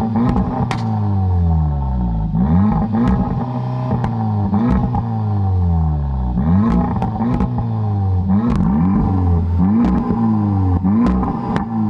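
Audi S3 8V's 2.0 TFSI turbocharged four-cylinder engine being revved in neutral: about a dozen quick blips, each rising sharply and falling back. Sharp cracks come between the blips.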